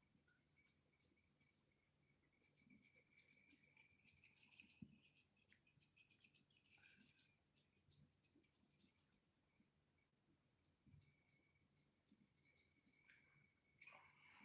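Curved grooming shears snipping in quick runs through a toy poodle's face fur, faint, in four or so bursts of rapid cuts with short pauses between.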